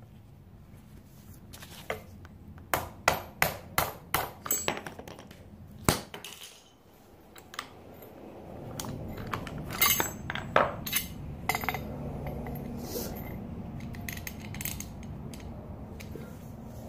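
Hammer blows on metal bike parts: a quick run of about ten sharp clanking strikes in the first six seconds, then scattered strikes and clinks over a steady low hum.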